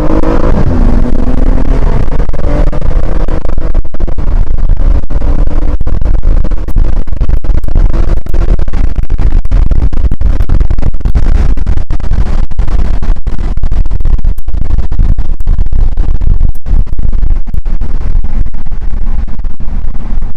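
The BMW M235i's turbocharged straight-six engine note falls as the car decelerates during the first couple of seconds. After that, loud wind buffeting and road noise hit the microphone, distorted and crackling.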